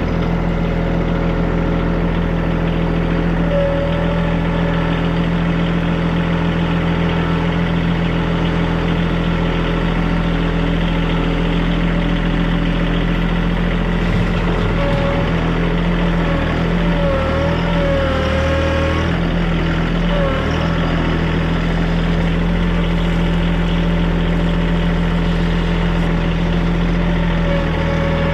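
Big tractor's diesel engine running steadily, its pitch wavering briefly about halfway through as the engine speed shifts.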